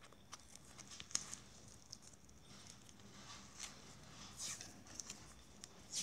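Faint rustling and scattered small clicks of hands twisting and handling the fan's lead wires while joining and insulating them.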